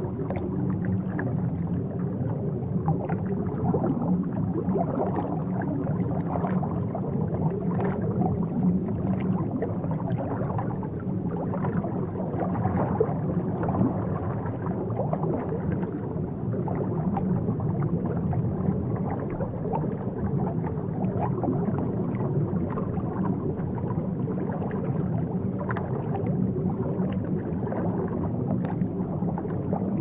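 Aquarium water gurgling and bubbling steadily over a constant low hum.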